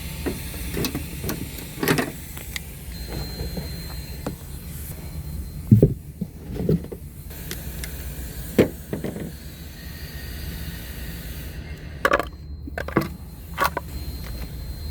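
Scattered clicks and knocks of hand tools being handled during an oil change, over a steady low hum.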